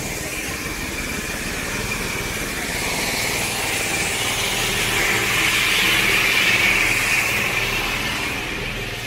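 Small engine of a market grinding mill running steadily, with the rushing noise of the mill at work. It grows louder past the middle and eases off near the end.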